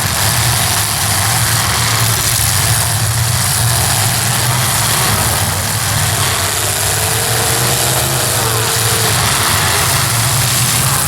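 Demolition derby cars' engines running in a steady, loud drone, with no sharp crashes standing out.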